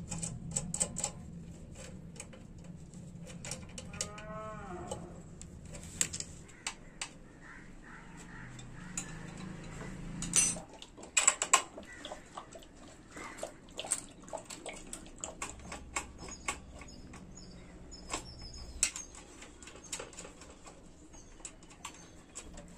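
Small metal clicks and taps as a TVS 50 moped's brake cables and their fittings are worked onto the drum-brake hubs by hand, with a cluster of sharper clicks a little past ten seconds in. A single drawn-out pitched call sounds about four seconds in.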